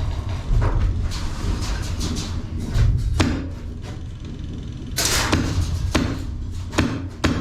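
Airsoft guns firing a series of sharp shots, some single and some in quick strings, with the densest burst about five seconds in.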